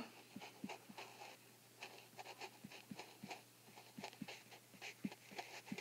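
Faint, irregular taps and light scratches of a stylus on an iPad's glass screen as words are handwritten letter by letter.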